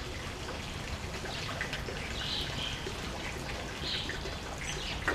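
Steady outdoor background hiss with a few short bird chirps scattered through it.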